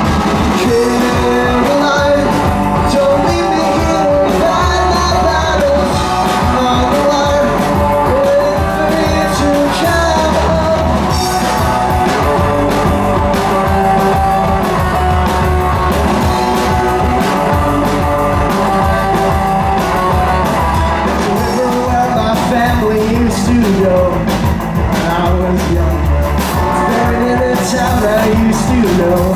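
Live rock band playing a song: electric guitars over a drum kit, loud and continuous.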